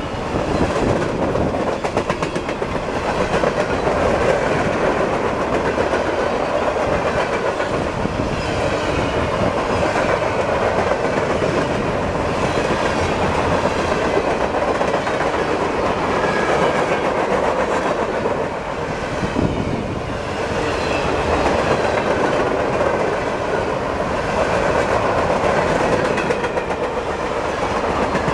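Empty freight cars of a pipe train rolling past at speed, a continuous rumble with wheels clicking over the rail joints.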